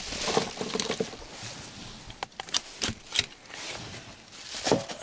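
Dry reed stems rustling and crackling, with a few sharp irregular knocks and clicks of handling against the boat, the loudest near the end.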